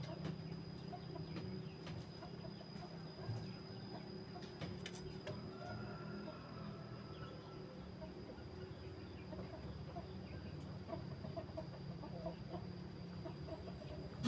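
Faint, scattered short bird calls over a steady low hum.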